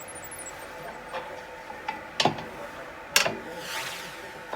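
A few sharp clicks and knocks, the loudest a little past two and three seconds in, followed by a short scraping sweep: parts or tools being handled.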